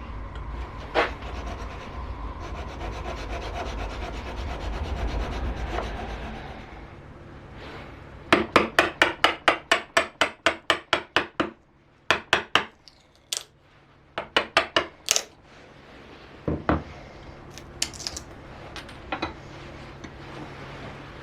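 Hand tool working wood, rasping or filing: steady scraping for the first few seconds, then a fast run of short strokes at about four a second that stops, starts again briefly, and ends with a few single knocks.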